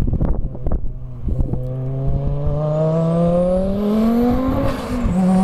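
Wind buffeting the microphone, then an Audi quattro's engine accelerating hard as the car approaches. The note rises steadily, drops sharply at a gear change about five seconds in, and starts climbing again.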